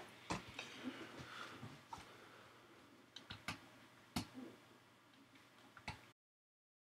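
Scattered clicks of a computer keyboard and mouse, about eight sharp clicks at uneven spacing over faint room hiss, then the sound cuts to dead silence near the end.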